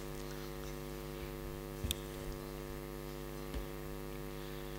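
Steady electrical mains hum from the microphone and sound system, with a couple of faint clicks, about two seconds in and again past three and a half seconds.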